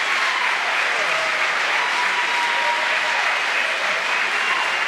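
Theatre audience applauding steadily, with a few faint whistles and shouts in the crowd.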